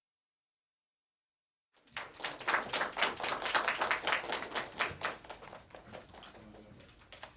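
Flurry of many camera shutters clicking rapidly, starting about two seconds in, densest for a few seconds and then thinning out to scattered clicks.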